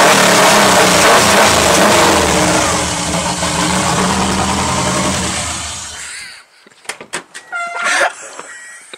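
Turbocharged Subaru EJ22 flat-four running loud on its first start after the turbo relocation, its revs rising and falling, then dying away about six seconds in. Scattered light knocks and brief squeaks follow.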